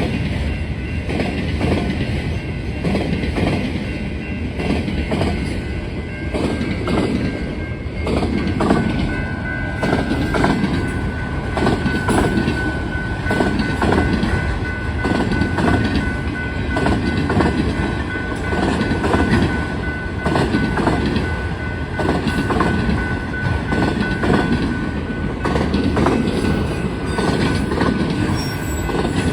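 Norfolk Southern train's cars rolling past, with a steady rumble and wheels clacking in a regular rhythm over the rail joints. A thin, steady high-pitched squeal, likely from the wheels, joins in about six seconds in.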